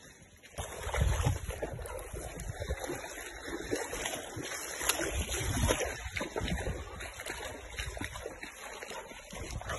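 Several people's bare feet splashing and sloshing through shallow river water as they wade, starting about half a second in.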